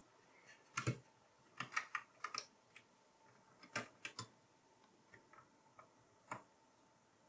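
Light metallic clicks and ticks from a desktop CPU socket's retention lever and hinged load plate as they are unlatched and swung open, a few at a time with short gaps.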